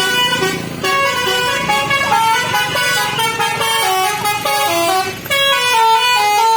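Bus telolet horn playing a quick tune of stepped, changing notes, with a brief break about five seconds in.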